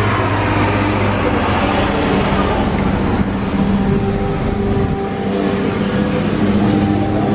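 Steady rushing and rumbling noise on the microphone of a camera carried on a moving bicycle, with a low steady hum running through it.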